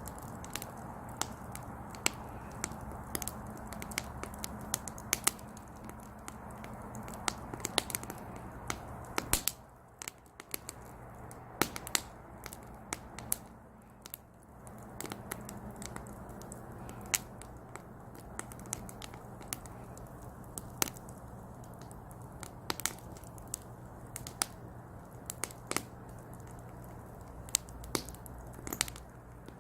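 Wood logs burning in a small brazier, crackling with frequent sharp, irregular pops over a low steady hiss of the fire.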